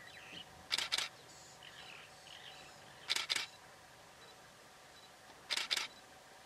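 Camera shutter clicking in quick double snaps, three times about two and a half seconds apart, over faint bird chirps in the bush.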